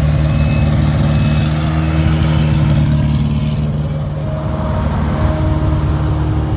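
Heavy diesel road-construction machinery running steadily, such as asphalt rollers compacting fresh paving, with a reversing alarm beeping at an even pace through roughly the first two seconds and a lower-pitched beep twice about four to five seconds in.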